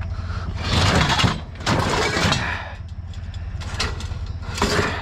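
Scrap being dragged and shoved into a trailer: two long scraping, sliding noises in the first half, then a few sharp knocks, over the steady low hum of an idling vehicle engine.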